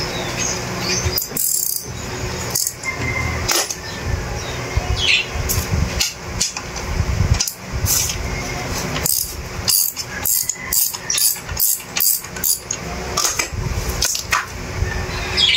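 Sharp metallic clicks and taps from hand work on a Stihl chainsaw's guide bar and chain. There is a quick run of clicks in the middle, about three a second. Birds chirp faintly in the background.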